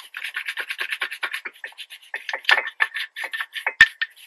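Rapid scraping strokes of a hand tool cleaning dirt and brake dust out of a car's front brake caliper, about five or six strokes a second, with one sharp knock near the end.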